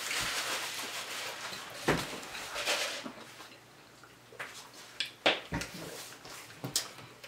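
Close-up eating sounds: chewing and wet mouth noises, with a few short, sharp clicks scattered through the second half.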